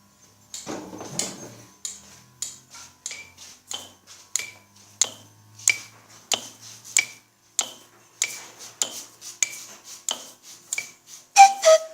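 Improvised everyday-object percussion: household objects struck in a steady pulse of about one and a half taps a second, each tap clinking like dishes or cutlery and ringing briefly. A rustling scrape comes in the first second or two, and louder pitched notes join near the end.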